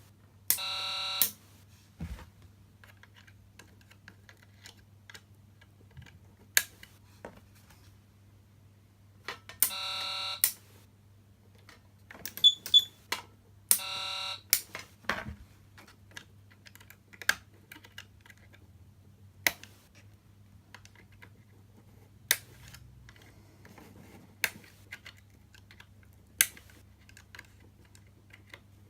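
Patlite SAP500BZ siren amplifier giving three short buzzer tones, each under a second long: near the start, about ten seconds in and about fourteen seconds in. Between them come sharp single clicks of switches being flipped, over a faint steady low hum.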